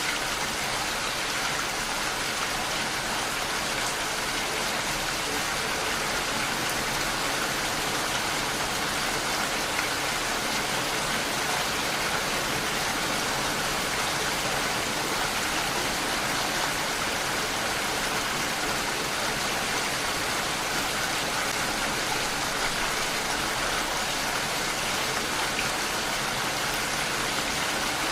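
Steady rain falling, an even hiss of drops with no pauses or changes.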